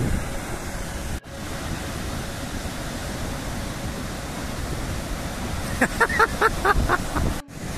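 Sea surf breaking and washing onto the shore, a steady rushing hiss that drops out briefly twice. Near the end a quick run of short high-pitched calls, about six a second, rises over it.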